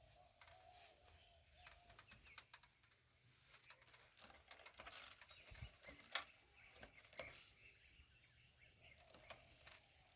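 Near silence: faint outdoor ambience with scattered small clicks and crackles, one sharper click about six seconds in.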